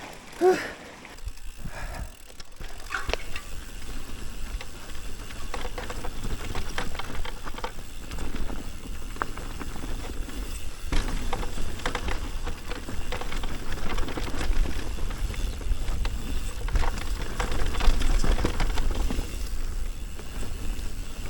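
Mountain bike rolling down a rough dirt trail: a steady rush of tyre and wind noise with a low rumble, broken by frequent short clicks and knocks from the bike rattling over the ground. The rumble is loudest in the later part.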